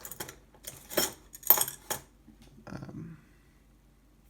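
Small metal tools and parts clinking and clattering against each other on a work surface while someone rummages for tweezers. There are several sharp clinks in the first two seconds, then a softer shuffling near three seconds.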